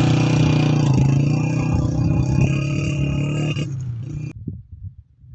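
Small motorcycle engine running steadily as the bike pulls away with two riders, slowly growing fainter, then cutting off abruptly about four seconds in, leaving only faint scattered ticks.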